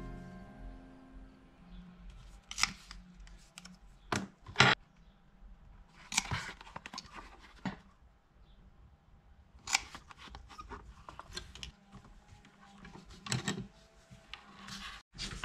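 Revolving leather hole-punch pliers snapping shut as they punch holes through thick leather. There are several short, sharp clicks at irregular intervals, with quiet handling in between.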